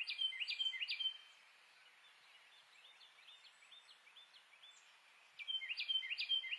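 Carolina wren singing: quick runs of repeated whistled phrases, loud at the start and again about five seconds in, with fainter repeated phrases continuing in between.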